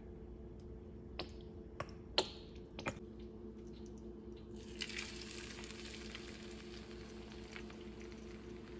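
A few sharp clicks, then about four and a half seconds in, raw eggs marinated in hot sauce pour into hot olive oil in a nonstick frying pan and start sizzling steadily.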